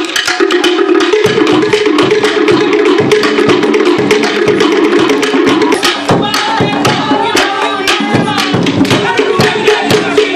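Cook Islands drum ensemble playing a fast, driving beat for a drum dance: a wooden slit drum struck rapidly and evenly over tall hand drums, with a ringing drum tone held underneath. Voices call out over the drumming from about six seconds in.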